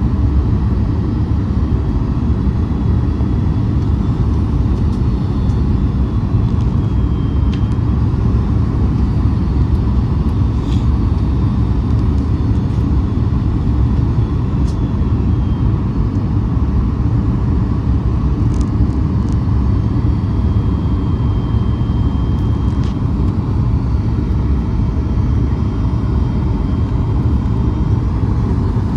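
Steady, loud low rumble inside a Boeing 737 MAX passenger cabin, with a few faint ticks.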